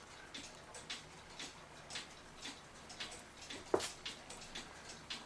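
A mechanical clock ticking faintly, about two ticks a second, with one louder knock a little past halfway through.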